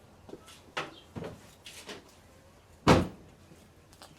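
A few light clicks and knocks, then about three seconds in a single loud slam of a panel on a Toyota Corolla being shut.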